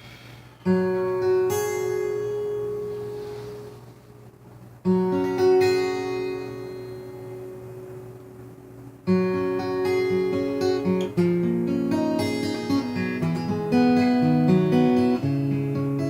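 Acoustic guitar played solo: three full chords strummed about four seconds apart, each left to ring and fade, then a run of single picked notes over ringing chords.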